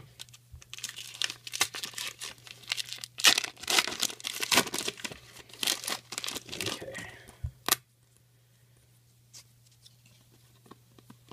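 A 2002 Bench Warmer Series 1 foil trading-card pack being torn open and crinkled by hand. There are about seven seconds of crackling tearing, which stop abruptly, followed by faint ticks of the cards being handled.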